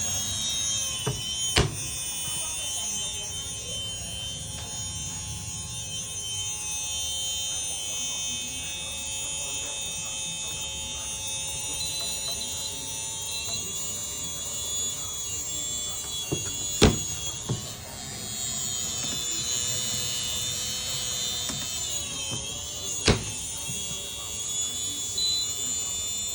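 A small electric motor running with a steady high-pitched whine made of several tones, broken by three sharp clicks. It is the abnormal noise ('異響') that is being recorded.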